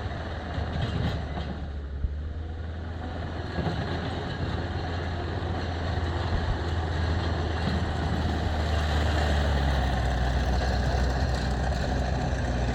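Takeuchi TL10 tracked skid steer's four-cylinder turbo diesel running steadily, getting a little louder about halfway through, with a few short knocks in the first few seconds.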